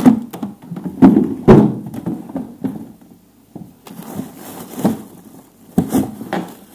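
Hands rummaging through frozen food in a plastic freezer drawer: hard frozen packages knocking against each other and the drawer several times, with plastic bags and cling film rustling between the knocks.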